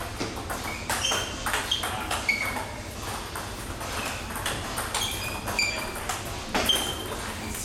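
Table tennis balls striking paddles and tables in several rallies at once: a steady, irregular run of sharp clicks, many with a short high ping.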